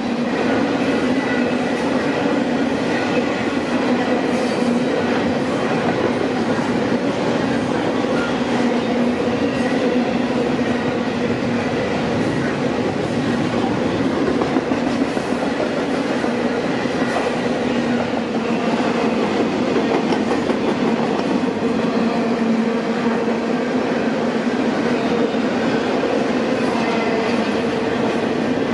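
Long double-stack container freight train rolling past at a steady speed, its wheels running on the rails.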